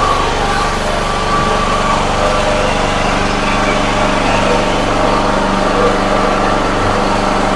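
A small engine running steadily at a constant speed, with an even hum.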